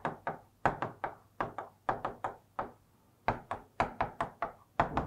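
Stylus tapping and knocking on a digital writing screen while chemical formulas are written: a quick, irregular run of short taps, about four a second, with a short pause a little past halfway.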